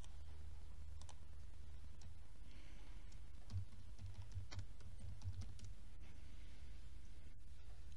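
Typing on a computer keyboard: a couple of single clicks, then a quick run of keystrokes in the middle as a short search term is keyed in, over a steady low hum.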